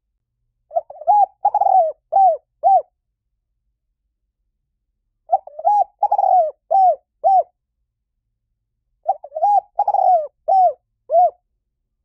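Spotted dove cooing: three phrases of about five coos each, roughly four seconds apart, each coo a short note that rises and falls in pitch.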